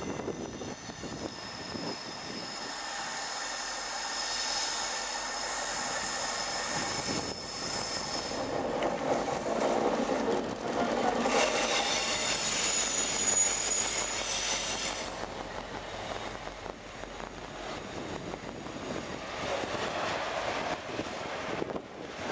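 A Class 60 diesel locomotive and its rake of coal hopper wagons rolling past on a curve, the wheels running steadily on the rails. High steady wheel squeal from the flanges on the curved track rises twice, loudest about halfway through.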